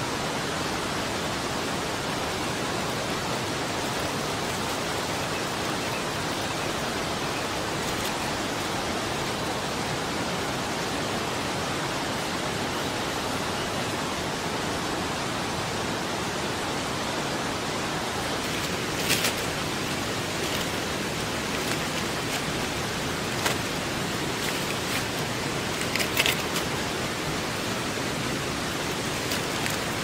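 Steady rushing of a river. A few short sharp clicks stand out in the second half.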